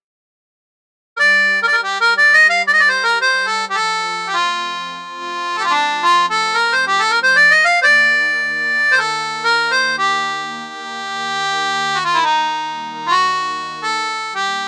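Roland Fantom 06 synthesizer keyboard playing a free-reed patch, harmonica or accordion-like, in a short melody over held chords. It starts about a second in and has a rising run of quick notes in the middle.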